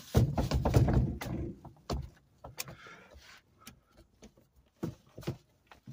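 Rustling and knocking from close handling: a loud muffled rumble for about the first second and a half, then a few scattered clicks and knocks and a short rustle about three seconds in.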